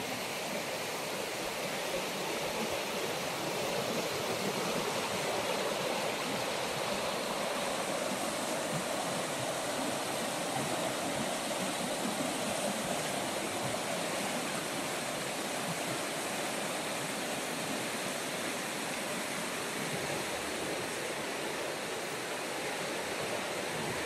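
Fast, turbulent river water rushing over shallow rapids and around old wooden bridge piles: a steady, even rushing noise.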